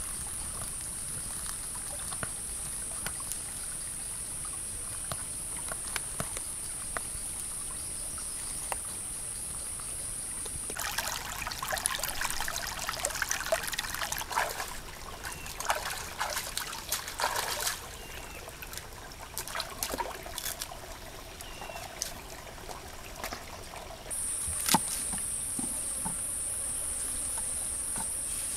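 A high, steady insect trill with faint clicks of a fork against a cast-iron skillet. About eleven seconds in, this gives way to a stream trickling and splashing over rocks. Near the end the insect trill returns with one sharp knock.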